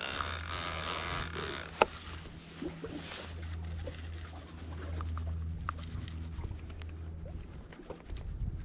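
Large conventional fishing reel being cranked against a heavy fish: a scratchy whir of the gears for the first couple of seconds, a sharp click just after, then scattered light ticks. A steady low hum of the boat runs underneath.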